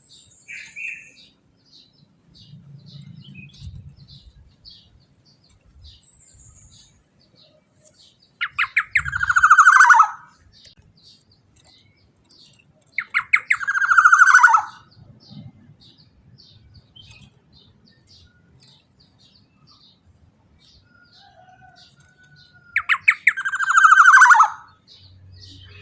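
Black-naped oriole (kepodang emas) giving three loud calls, about nine, fourteen and twenty-four seconds in. Each call is a quick stutter of notes running into a sweep that slides down in pitch. Faint rapid high ticks carry on between the calls.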